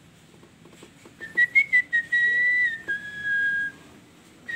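A person whistling a short tune of a few held notes, starting about a second in and stopping a little before the end.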